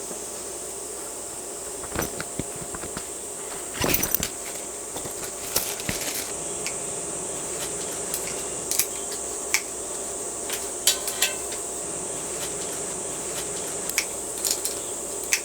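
Scattered clinks and knocks of dishes and utensils being handled, irregular and a few per second at most, over a steady background hiss.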